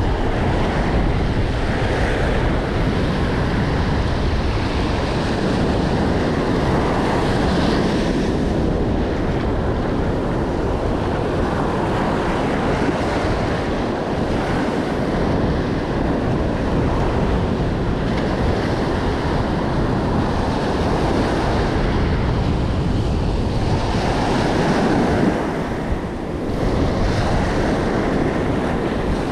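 Ocean surf breaking and washing in over a sandy beach, a steady rushing that swells and eases with the waves, with wind buffeting the microphone.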